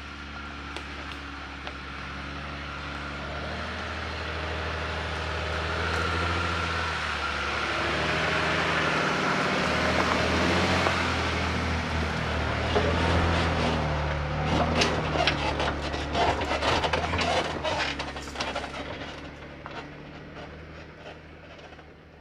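Jeep Wrangler driving slowly on a dirt forest trail: the engine runs at low revs and grows louder as it approaches and passes close by. In the second half a dense crackling of sticks and branches under the tyres and against the body comes in, then everything fades as it moves away.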